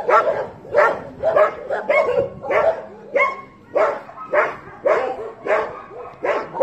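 A dog barking over and over in a steady rhythm, a bit under two barks a second.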